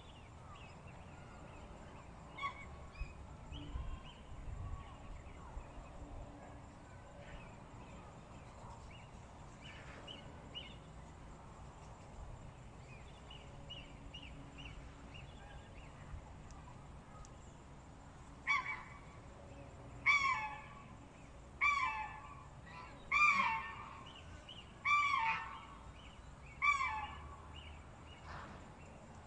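Chickens clucking: soft, scattered short clucks at first, then, about eighteen seconds in, six loud calls spaced about a second and a half apart.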